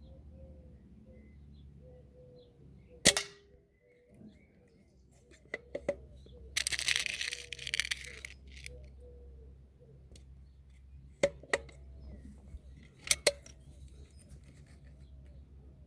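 Homemade Titan Mk1 rifle firing a single sharp shot about three seconds in, the loudest sound. Clicks and a brief rustle of handling follow, then more sharp cracks near the end.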